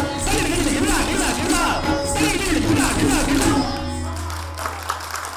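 Kathak dancers' footwork with ghunghroo ankle bells, stamping out a fast rhythmic pattern that mimics tabla strokes, over musical accompaniment. It stops about three and a half seconds in, leaving a low hum.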